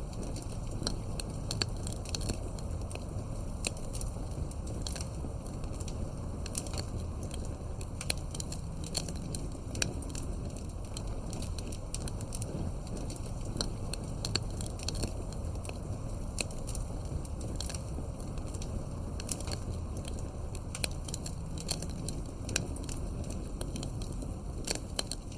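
Campfire crackling and popping: frequent sharp, irregular snaps over a steady low rumble of burning wood.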